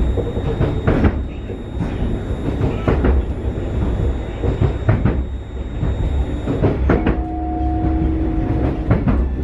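Inside a Newag 19WE electric multiple unit under way: a steady low rumble with occasional sharp knocks. Near the end a steady two-note tone sounds for about two seconds.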